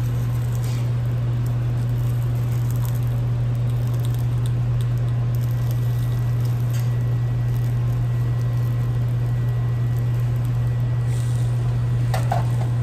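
A steady low hum, with a few faint light clinks of a metal spoon against a skillet as pan sauce is spooned over a steak.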